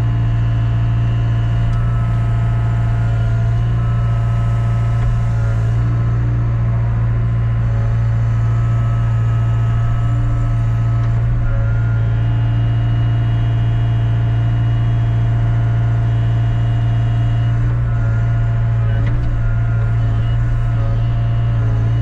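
A truck engine running steadily: a constant low drone that holds the same speed throughout.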